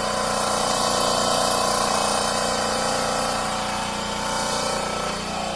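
Steady hum and hiss of an electric motor-driven pump or compressor running in the garage, easing off slightly near the end.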